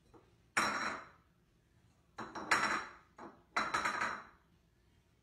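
A white food bowl clattering on a tile floor as a cat lying against it tips it and lets it drop, about three clatters, each with a short ring.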